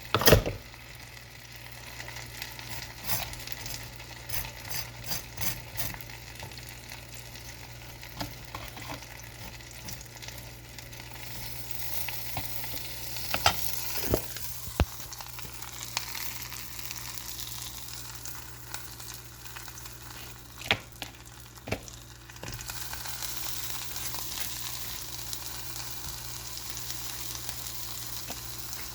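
Sausages sizzling in a frying pan, a steady hiss that grows louder about halfway through and again later on, with a few sharp knocks of a utensil or pan.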